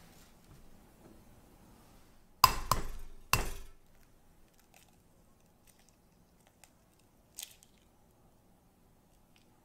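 Glass and ceramic kitchenware clinking: three sharp knocks with a short ring a little over two seconds in, then only faint ticks and one small click.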